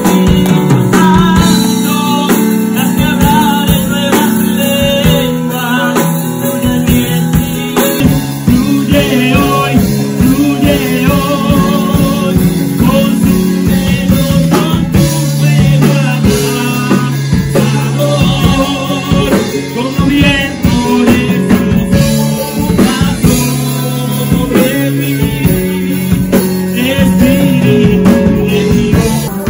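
Live worship band playing a song with singing. The drums and bass come in fully about eight seconds in.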